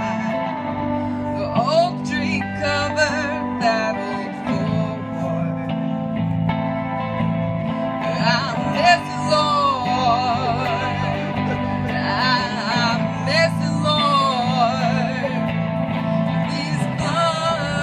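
Live music: a woman singing into a microphone, her voice wavering in pitch, over a steadily strummed electric guitar.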